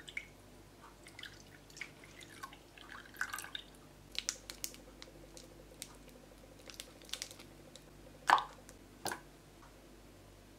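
Soft splashes and small clicks of liquid and a saucepan being handled, then two louder plops close together near the end as pieces of milk chocolate drop into the milk in the pan.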